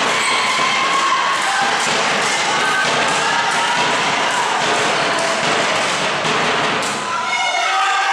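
Girls' voices shouting and cheering in a sports hall during a volleyball rally, mixed with scattered thuds of the ball being hit and of feet on the wooden floor.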